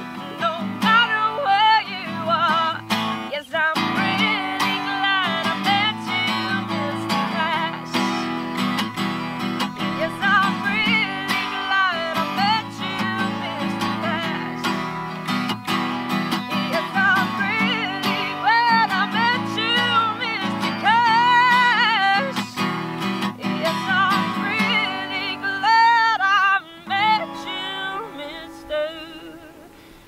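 A woman singing a country song live while strumming her acoustic guitar. The song winds down over the last few seconds as the guitar dies away.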